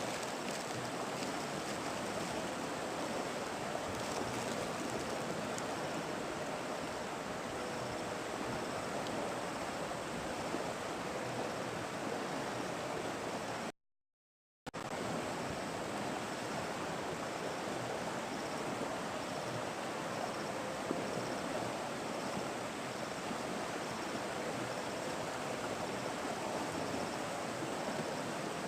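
River water flowing steadily, with a faint high chirp repeating about once a second. The sound cuts out completely for about a second near the middle.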